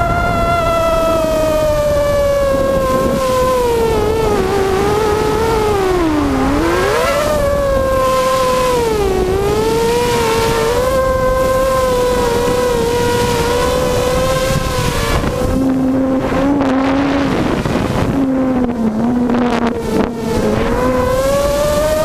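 Hexacopter's six Tiger MN1806 2300kv brushless motors spinning GemFan 5x3 two-blade propellers in flight: a loud whine that drops in pitch with the throttle about 6 and 9 seconds in and climbs again near the end, with a lower second tone joining for several seconds late on. Heavy wind noise on the onboard camera's microphone runs under it.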